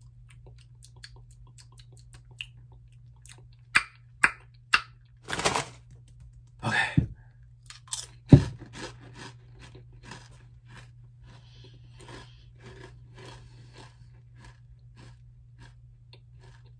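Zapp's Voodoo kettle-style potato chips being bitten and chewed: a few sharp crunches about four seconds in, the loudest crunches between five and eight seconds, then a run of fainter chewing crunches that die away.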